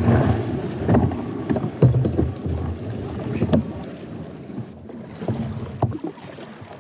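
Water splashing and sloshing around a Viking Profish 440 sit-on-top kayak in the shallows as a person climbs aboard and sits down, with several sharp knocks against the hull.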